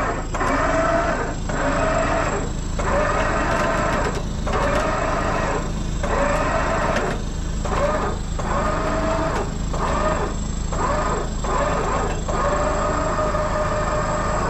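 Tow truck's winch whining as it hauls in cable, in about a dozen short pulls of a second or so each, with the truck's engine running steadily underneath.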